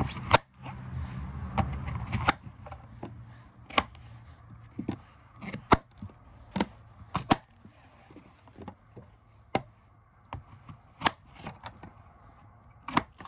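Kitchen knife cutting frozen apples into pieces on a board: irregular sharp knocks as the blade goes through the fruit and hits the board, one or two a second. A low rumble sits under the first couple of seconds.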